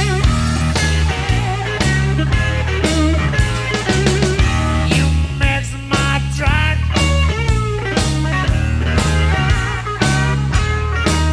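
Electric blues-rock band playing: electric guitar lead with bent notes over drums and bass guitar, in a steady beat.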